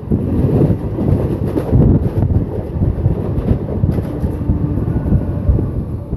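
Train running at speed on the track, a loud steady rumble of wheels and rail, with wind buffeting the microphone.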